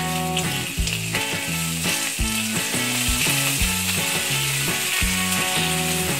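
Prawns sizzling in hot oil in a frying pan, a steady crackling hiss, over background music with a plodding bass line and regular beat.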